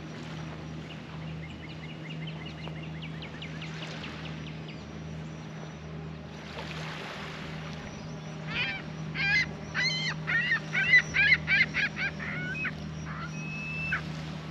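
Geese honking on the lake: a few faint calls, then a loud, fast run of about a dozen honks over four seconds in the second half, and one more call near the end.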